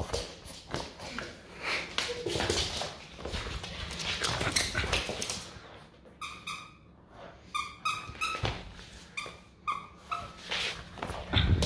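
French bulldog puppy playing with a plush toy: scuffling and rustling as it tugs and mouths the toy, then a string of short high squeaks in the second half.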